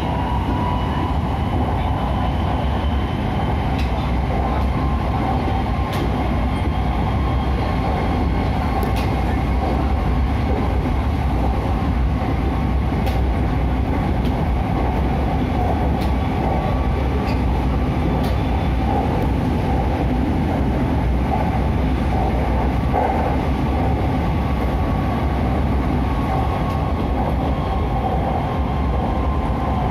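Inside the carriage of an SRT Red Line electric commuter train running at speed: a steady low rumble of wheels on rail with a faint high whine.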